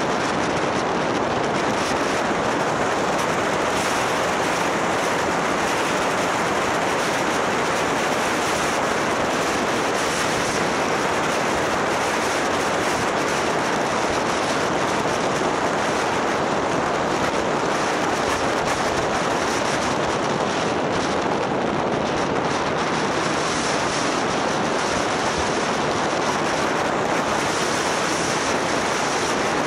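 Steady rush of wind over the microphone of a camera mounted on a moving motorbike, with the motorbike's running noise blended in and no distinct engine note standing out.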